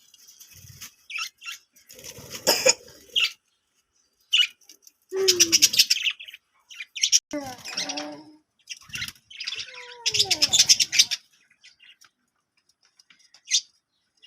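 Pet budgerigars chirping and chattering in irregular bursts of shrill calls, with short quiet gaps between.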